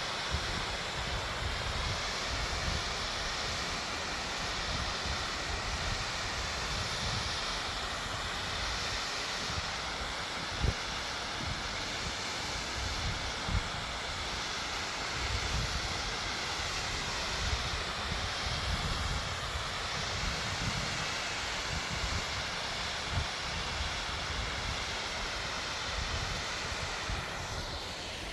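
Steady rush of a waterfall, with wind buffeting the microphone in gusts and a few brief knocks.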